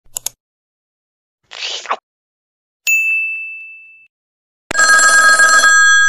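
Two quick clicks, a short whoosh falling in pitch and a single ding that fades out, then about four and a half seconds in a telephone starts ringing loudly, a harsh ring of several steady tones at once.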